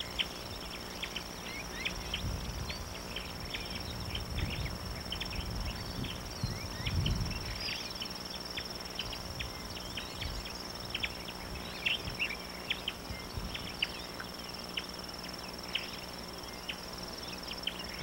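An insect trilling steadily at a high pitch, with many short, high chirps scattered through it and a few soft low rumbles.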